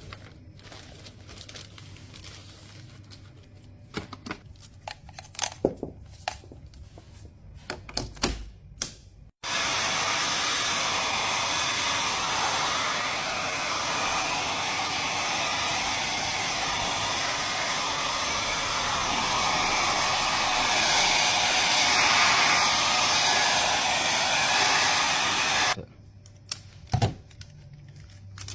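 Clicks and knocks of handling, then about nine seconds in a hairdryer is switched on and blows steadily for about sixteen seconds, warming a sign's protective film to loosen it, before it cuts off suddenly, followed by a few more clicks.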